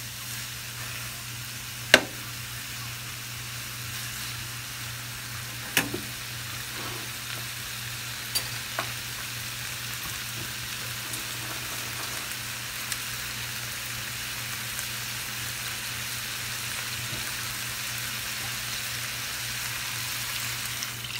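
Pork rib pieces and chopped garlic sizzling as they sear in a nonstick frying pan, a steady hiss. A few sharp clicks sound over it, the loudest about two seconds in and another near six seconds.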